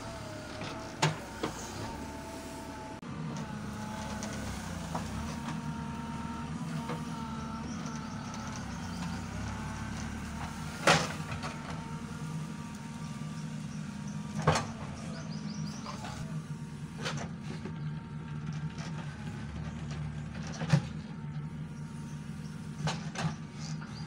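A JCB 3CX backhoe's diesel engine running steadily, with a higher whine that shifts in pitch over the first several seconds. Sharp knocks come about six times, the loudest about eleven seconds in.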